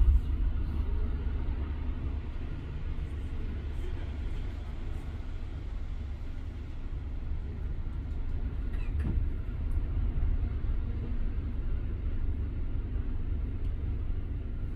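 Steady low rumble of city road traffic, buses and cars running along the street, with a short knock about nine seconds in.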